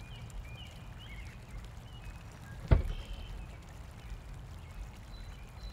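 Car door being opened, its latch giving one sharp click a little under three seconds in, over a low steady outdoor rumble with faint bird chirps.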